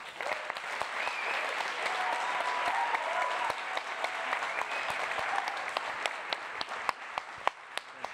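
Audience applauding: a dense round of clapping that thins after about six seconds into scattered individual claps.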